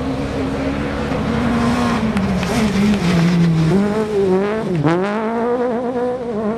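A World Rally Car's turbocharged four-cylinder engine running hard at high revs as the car slides through a gravel corner. The revs fall and climb several times, with a sharp dip and quick climb about five seconds in.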